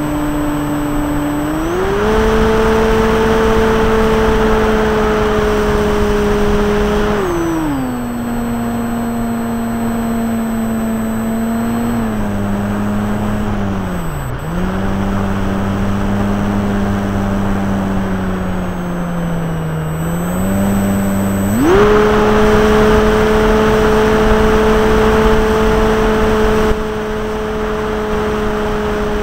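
Brushless outrunner electric motor and propeller of an RC model Cessna 182, heard close-up from a camera on the plane, whining with a rush of air noise. The pitch steps up to a high steady whine about two seconds in as the throttle opens. It drops lower about seven seconds in, sags twice, steps back up to full about twenty-two seconds in, and winds down near the end.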